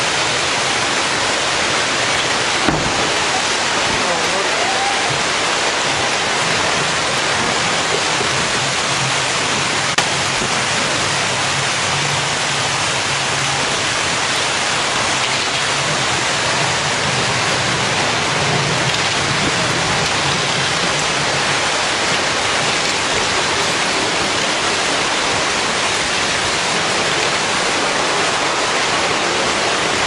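Tsunami floodwater surging through a town street: a steady, loud rush of churning water, with a couple of sharp knocks of debris.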